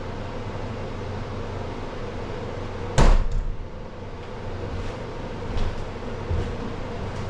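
A single loud knock about three seconds in, over a steady low hum.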